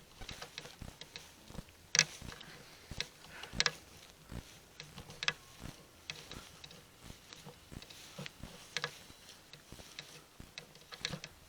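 Footsteps: a faint irregular run of crunches and clicks, roughly one a second, with a sharper one about two seconds in.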